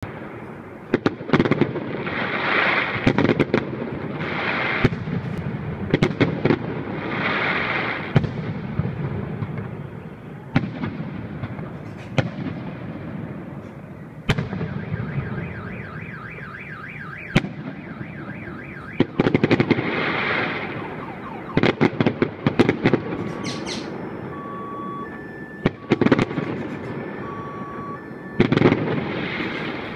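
Aerial firework shells bursting in a salute display: repeated sharp bangs, with crackling showers after several bursts. From about halfway, a car alarm sounds in the background with repeating electronic tones.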